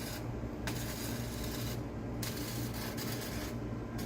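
Arc welding on a metal door: a crackling hiss in stretches of a second or so, broken by short pauses about three times, over a steady low hum.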